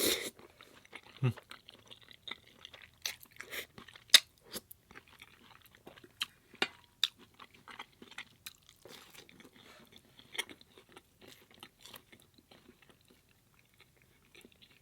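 Close-miked chewing and biting: an irregular string of short, sharp mouth clicks and crunches, the loudest about four seconds in.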